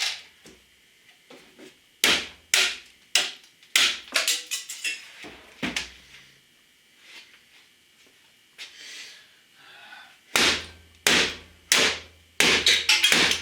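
Hammer blows on an old computer's case and disk drives: a run of single hard strikes, a lull of about four seconds, then a quicker cluster of five or six blows near the end.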